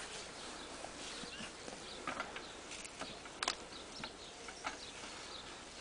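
Wire cage trap holding a badger clicking and rattling as a white plastic grid is worked against the cage, a few sharp knocks with the loudest about two seconds and three and a half seconds in, over steady outdoor background hiss.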